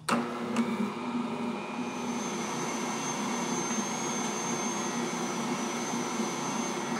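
Bosch stand mixer's motor running steadily, its dough hook kneading soft pretzel dough, with a thin high whine joining about two seconds in.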